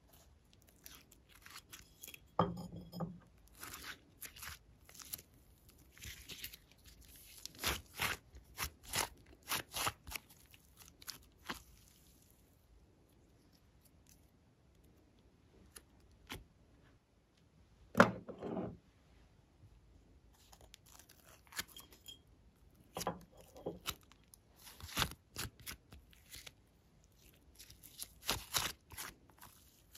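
Sticky slime handled by hand, crackling and popping in clusters of sharp clicks as it is peeled apart and squeezed, with one loud snap just past the middle and a few quiet seconds before it.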